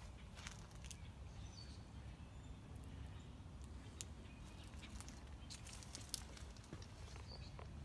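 Quiet outdoor background: a steady low rumble with scattered light clicks and taps, and a couple of faint bird chirps, one about a second and a half in and one near the end.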